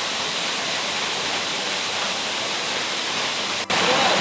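Waterfall: a steady rush of falling water. Near the end it drops out for an instant and comes back louder.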